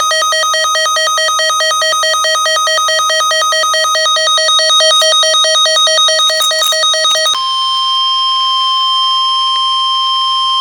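Emergency alert tones: a rapidly pulsing electronic beeping tone for about seven seconds, then it switches to a steady single-pitched alarm tone, the weather-radio warning tone that comes before a warning is read.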